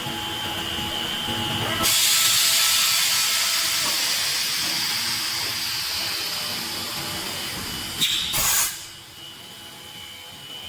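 Blow molding machine running with a steady hum, then a sudden loud hiss of compressed air about two seconds in that slowly fades. Near the end comes a click and a short, sharp burst of air, after which the machine runs quieter.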